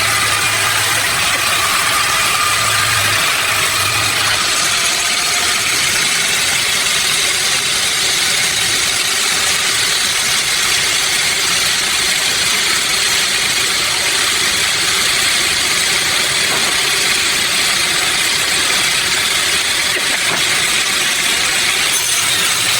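Sawmill machinery running with a steady, unbroken mechanical noise.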